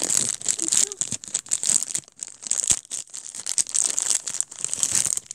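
Thin clear plastic bag crinkling in rapid, irregular crackles as hands pull it open, with a brief lull about two seconds in.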